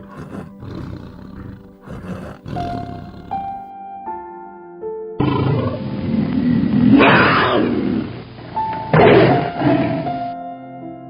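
Background music of steady, gently stepping notes; about five seconds in, a big cat such as a tiger or lion growls and roars twice, the two roars the loudest part, before the music carries on alone.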